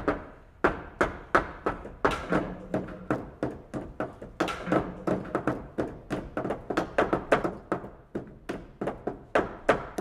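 A steady series of sharp percussive knocks, about three a second, each ringing briefly, cutting off abruptly at the end.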